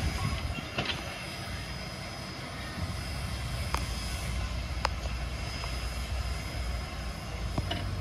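Steady low rumble of a train, with a few sharp clicks and knocks now and then and a faint steady high whine.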